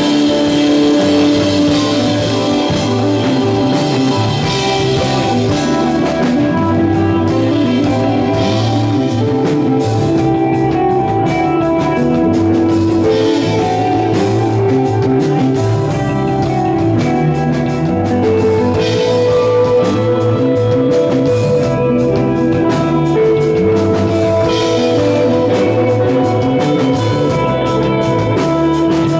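A psychedelic stoner-rock band playing live and instrumental: sustained electric guitar notes over bass and a drum kit with cymbals.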